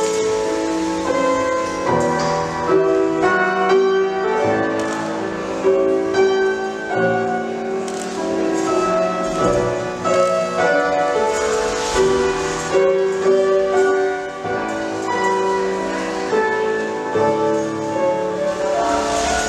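Piano music, a flowing piece of chords and melody played as accompaniment for ballet barre exercises.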